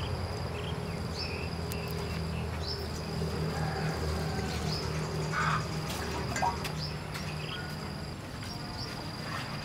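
Insects calling steadily: a high, thin whine that starts again with a short rising note about once a second. About halfway through, water is briefly poured into a metal pot.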